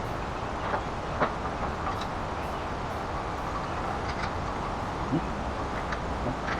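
Steady background noise with a few light, scattered clicks and taps, typical of hand tools working on an engine.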